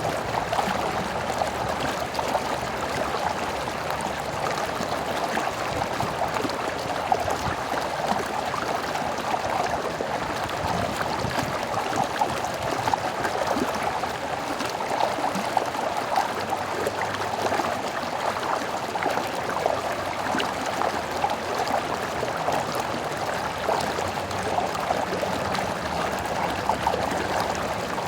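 A small stream running and babbling over stones, a steady, even rush of water with fine gurgling and trickling detail.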